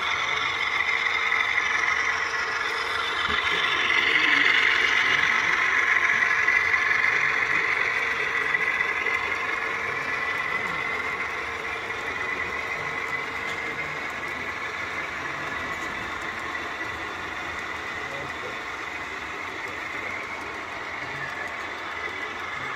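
Model train running past on the layout: the diesel locomotives' engine sound with the rumble of wheels on the track. It swells to its loudest about five seconds in, then slowly fades as the train moves away.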